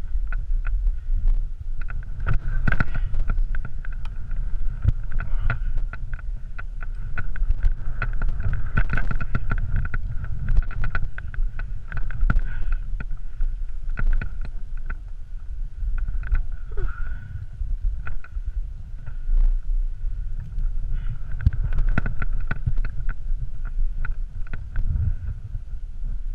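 Skis hissing and scraping through snow while wind buffets a body-worn action camera's microphone, with frequent small clicks and knocks and a faint steady high whine throughout.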